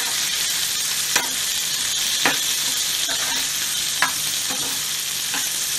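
Sliced onions sizzling in hot oil in a frying pan as they are fried toward golden brown, with a spatula stirring and knocking against the pan about once a second.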